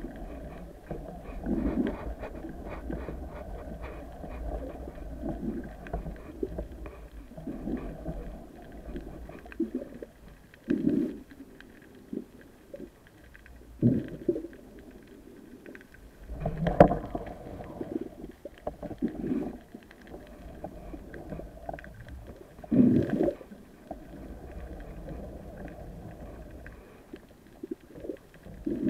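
Underwater noise heard through a camera's waterproof housing: a low, muffled rumble with irregular dull thumps and swishes every few seconds, a few of them louder about 11, 14, 17 and 23 seconds in.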